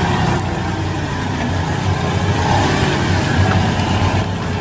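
Engine of a propane-fuelled Cat forklift running steadily as the forklift drives.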